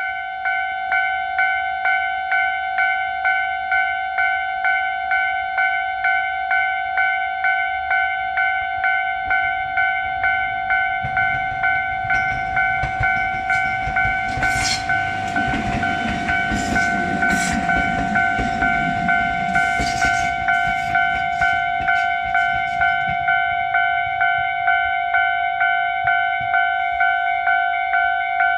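Japanese railway level-crossing warning bell ringing steadily, a little under two electronic dings a second. About a third of the way in, a Tōbu 8000-series electric train rumbles through with its wheels clattering over the rail joints, loudest about halfway and fading out again before the end while the bell keeps ringing.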